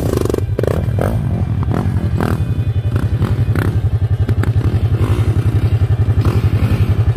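Small off-road vehicle engine running at a steady idle, pulsing evenly, with a few short clattering knocks.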